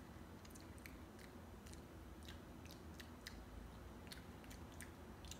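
Faint, irregular wet clicks, about two a second, of someone chewing a jelly bean, over near-silent room tone.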